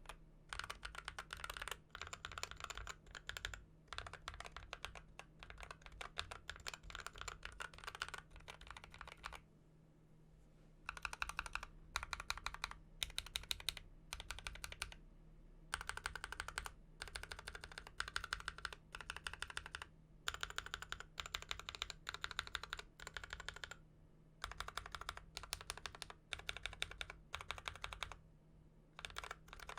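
Mechanical keyboard fitted with Akko linear switches being typed on, fast runs of key strokes in bursts broken by short pauses.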